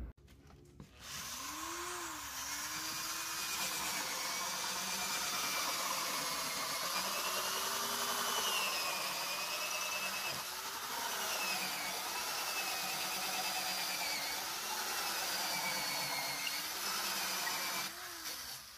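Electric drill fitted with a hole saw, cutting round holes through a thick slab of tree bark. The motor runs steadily, its pitch wavering up and down as the load changes; it starts about a second in and stops near the end.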